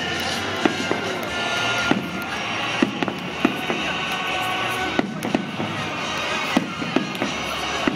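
Fireworks display: sharp bangs of shell bursts at irregular intervals, about one or two a second, over a steady dense crackle and rumble, with music also playing.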